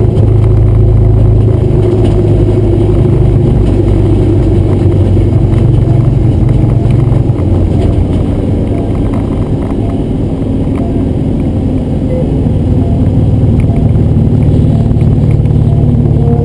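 Honda S2000's four-cylinder engine running hard under load, heard from inside the car's cabin. It eases off for a few seconds around the middle, then builds again.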